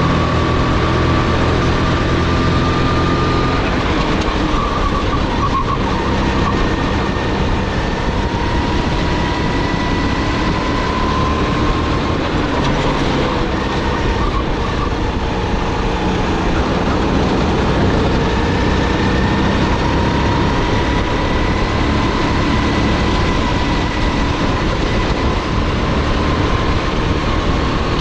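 Onboard sound of a Sodi GT5R rental kart's 270 cc, 9 hp single-cylinder four-stroke engine running hard at racing speed, with wind and road noise. The engine note climbs slowly and dips back several times as the kart goes from straights into corners.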